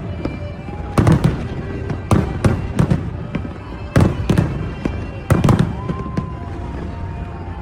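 Fireworks display: aerial shells bursting with sharp booms every second or two, several in quick pairs, with crackling between them.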